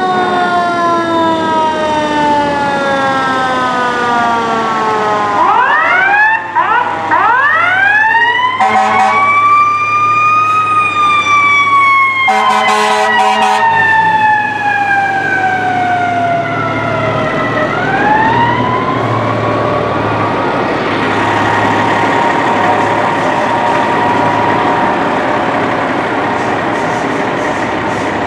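Fire engine siren rising and falling in long, slow glides, with a few quick spin-ups partway through. Two short horn blasts come in the middle, and in the last third the siren fades under the rumble of a passing truck.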